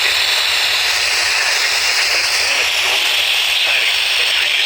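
FM radio static: a loud, steady hiss from a weakly received station, with the broadcast only faintly showing through beneath it.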